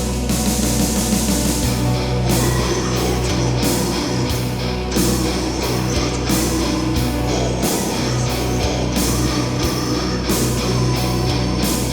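Heavy metal music: distorted electric guitars with bass and drums, the hits coming at a steady pace.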